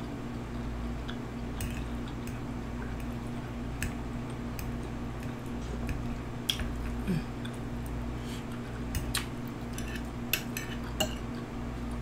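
Close-miked eating sounds: scattered sharp clicks and small knocks of cutlery on a dish, with chewing, over a steady low hum.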